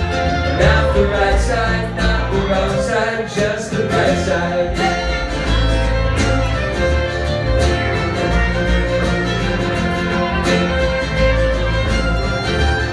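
Live bluegrass band playing an instrumental break: a bowed fiddle leads over strummed acoustic strings and an upright bass.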